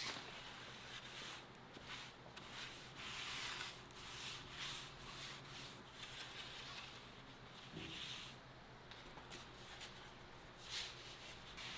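Faint hand sanding of wood: scratchy rubbing strokes repeated at an uneven pace, roughly one a second.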